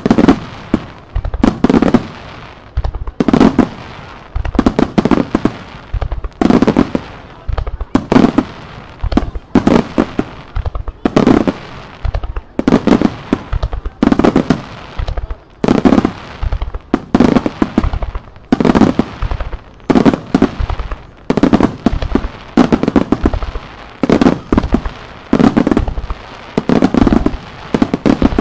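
Starmine fireworks: shells bursting in rapid volleys, a cluster of sharp booms about once a second, with crackling between the bursts.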